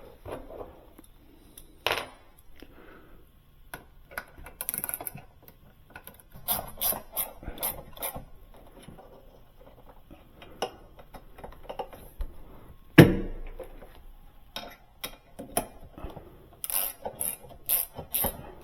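Hand tools and metal hardware clinking and knocking during hinge work on a refrigerator door, with one sharp knock about two thirds of the way through. Near the end a ratchet wrench starts turning, giving a run of quick, evenly spaced clicks.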